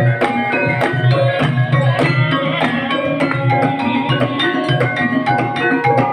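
Live Banyumasan gamelan accompanying an ebeg dance: hand drum strikes over ringing struck bronze metallophones in a steady rhythm.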